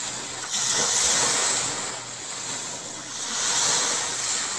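Ocean surf: waves washing in and out, the rush swelling and ebbing every two to three seconds.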